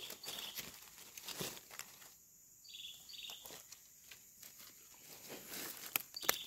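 Dry leaf litter rustling and crackling under a hand and feet on the forest floor, with a few sharper crackles near the end. A high chirping call repeats in short pairs in the background.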